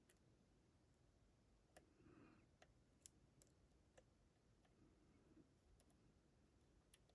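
A handful of faint, irregular clicks from a lock pick working the pins of a six-pin Nagasawa pin-tumbler lock.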